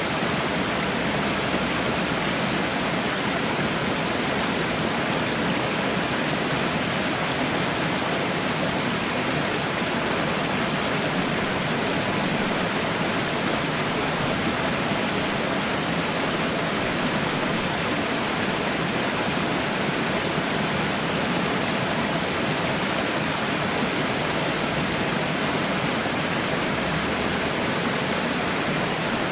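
Waterfall rushing with a steady, even roar of falling water.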